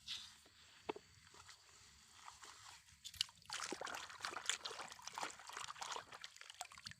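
Faint rustling and scraping with scattered light clicks, picking up about three and a half seconds in: small hands-on handling noises as a toy truck and its load are cleaned out.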